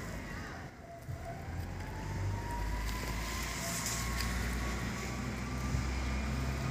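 A motor vehicle engine running under a low rumble, with a thin whine that dips about a second in and then rises slowly and evenly.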